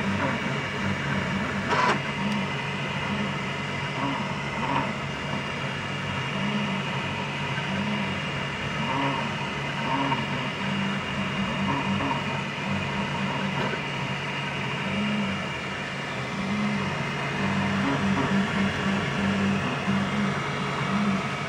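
Filament 3D printer mid-print: its stepper motors sing in short, changing tones as the print head moves, over a steady mechanical hum.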